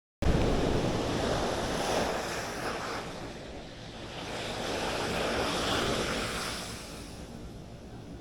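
Surf breaking on a beach with high waves, with wind buffeting the microphone. The noise cuts in suddenly and swells twice, once near the start and again about five to six seconds in, as waves roll in.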